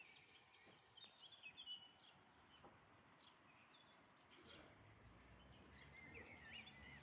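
Faint birdsong: short, high chirps in a couple of brief phrases, over a quiet outdoor background. A faint low rumble comes in about halfway through and carries on.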